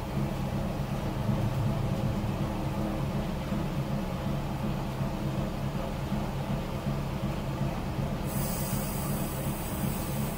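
The car ferry Aukra's MWM diesel engine running steadily as a low hum, heard from the wheelhouse. A high hiss joins about eight seconds in.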